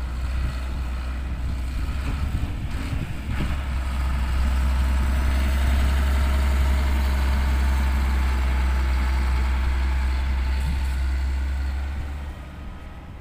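Heavy dump truck's diesel engine running steadily with a deep drone, growing louder over the first few seconds and fading near the end as the truck moves away.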